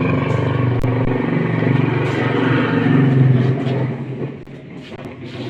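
A motor engine running steadily, loudest around three seconds in, then fading after about four seconds.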